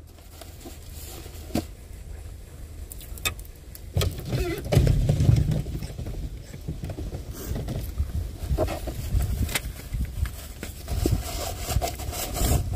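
Clicks, knocks and rustling of items being handled inside a vehicle, with a heavier low rumble of bumping around about four to six seconds in.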